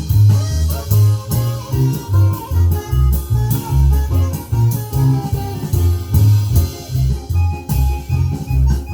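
Music playing back from a Philips CD614 compact disc player: a band track with prominent bass notes and a steady beat of about two pulses a second.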